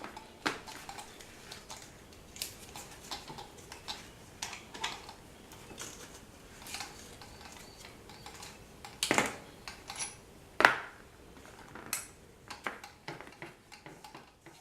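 Small metal parts being handled: irregular light clicks and clinks, with two louder clinks a little past the middle.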